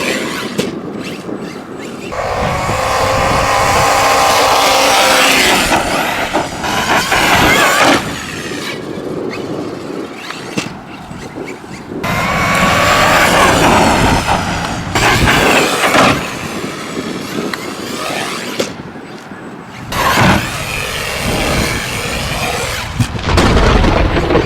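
Arrma Kraton 4S V2.5 RC truck's brushless electric motor whining in repeated bursts of acceleration, rising and falling in pitch, with quieter stretches of rolling noise between.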